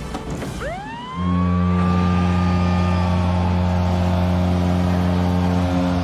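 Anaheim Ducks 2022 goal horn signalling a goal: a siren wail rises and levels off, and about a second in a loud, low horn blast joins it. The horn holds steadily for nearly five seconds and stops just before the end.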